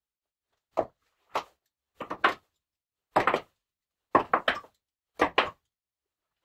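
A series of short knocks and clunks, some single and some in quick groups of two or three, coming about a second apart.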